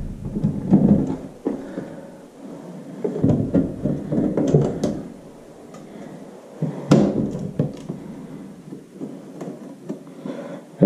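Screwdriver backing out the screws of a three-gang light-switch wall plate, with scattered small clicks, scrapes and handling knocks as the plate is worked off the wall.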